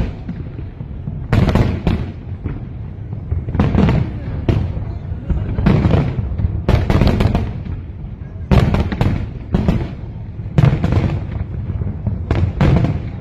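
Aerial fireworks shells bursting in a steady barrage, a sharp bang about once a second, each trailing into a rumbling echo over a continuous low rumble.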